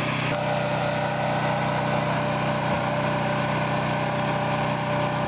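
Champion 9000-watt portable generator's gasoline engine running steadily at constant speed.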